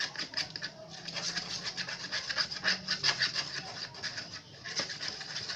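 Stirring a thick glue-based slime mixture in a container: a quick run of small clicks and scraping.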